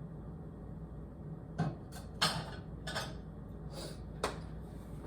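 A pickle being eaten close to the microphone: five short, sharp chewing sounds spaced about half a second to a second apart, starting about a second and a half in, over a low steady hum.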